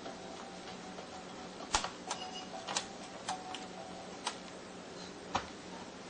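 Scattered sharp clicks and taps of a small screwdriver and a laptop hard drive's metal mounting bracket being handled, about six in all at uneven intervals, over a faint low steady hum.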